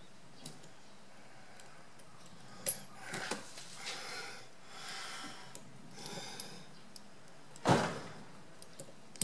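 Handling noises from a cast-metal brake master cylinder being assembled by hand: scattered small clicks and rubbing scrapes, then one loud sharp knock near the end.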